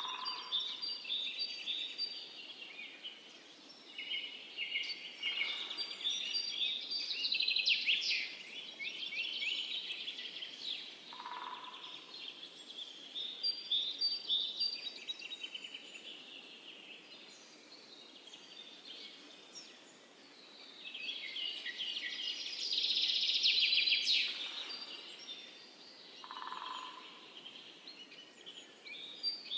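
A chorus of several songbirds singing at once, a mix of chirps and fast trills that swell twice, with a short lower call heard three times.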